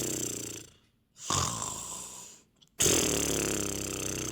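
A man snoring in long snores, one after another. One fades out about a second in, and two more follow, each lasting about a second and a half.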